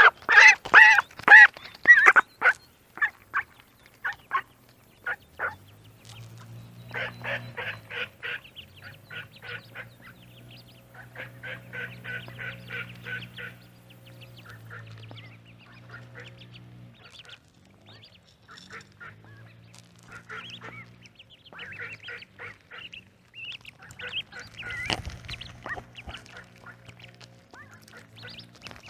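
Ducklings peeping in quick runs of short, high calls, loudest in the first two seconds, with a low steady hum beneath the middle stretch.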